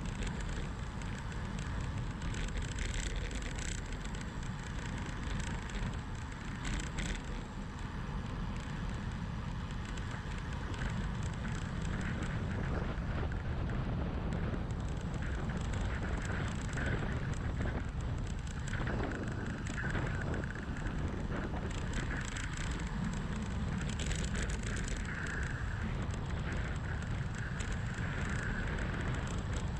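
Wind rushing over a GoPro's microphone on a fast road-bike descent, mixed with the hum of the tyres on asphalt. There are a few short clicks along the way.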